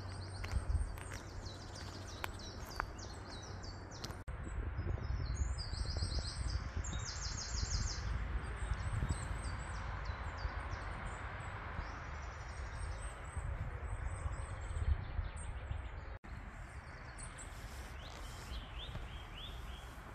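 Several songbirds singing, a run of short repeated high chirps and trills, over a steady low rumble.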